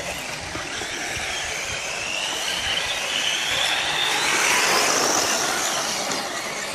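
Radio-controlled rally cars racing on a dirt track. Their motors give a high whine that rises in pitch and is loudest about four to five seconds in as the cars pass close.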